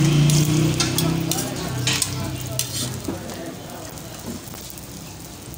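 Lachha parathas sizzling as they fry on a large flat griddle, with several sharp clicks of metal tongs against the griddle, mostly in the first three seconds. A low hum fades out over the first couple of seconds.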